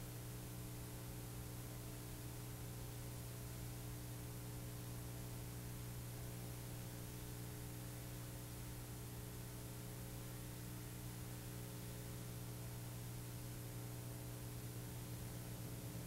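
Steady electrical mains hum with a faint even hiss and no programme sound, typical of a blank stretch on an old VHS off-air recording.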